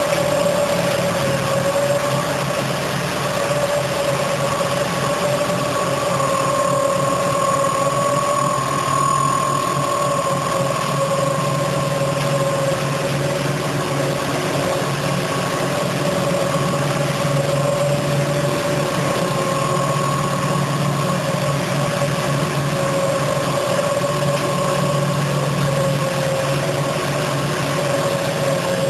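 Konfor automatic carpet-washing machine running, its motor and scrubbing brush head giving a loud, steady hum with a few held tones as a rug is washed.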